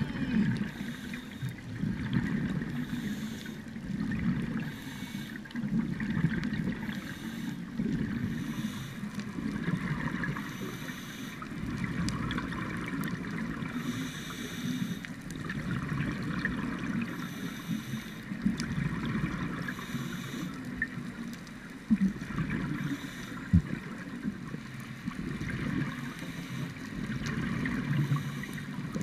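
Scuba regulator exhaust bubbles heard through an underwater camera housing: a muffled gurgling rumble that swells and fades every few seconds with the diver's breathing.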